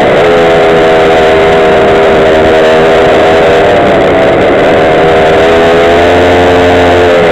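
Small engine of a Go-Ped gas scooter running at riding speed: a steady, loud buzz that sags a little in pitch and picks up again a couple of times, over a rushing noise.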